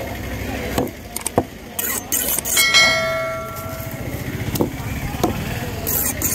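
A heavy curved knife chopping into a barracuda on a wooden table, several sharp chops, with a brief ringing metallic tone about two and a half seconds in. An engine runs steadily underneath.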